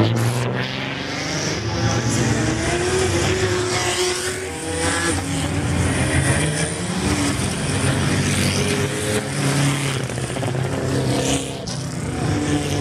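Field of historic 1950s–60s Formula 1 race cars moving off from the start, several engines running at once and revving up in pitch as the cars pull away one after another.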